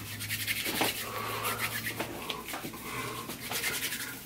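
Palms rubbing together briskly, a fast run of dry rasping strokes, skin on skin.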